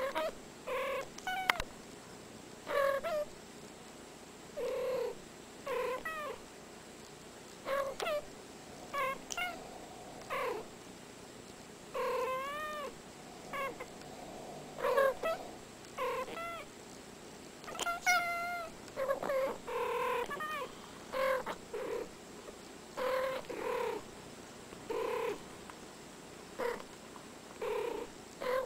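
Two domestic cats trading short meows and chirps back and forth, about one call a second with brief pauses, some calls sliding up and then down in pitch.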